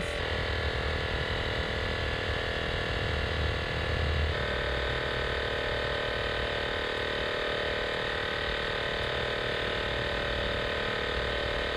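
Air compressor running steadily, inflating a plugged car tire as the pressure climbs toward 40 psi. Its tone shifts slightly about four seconds in.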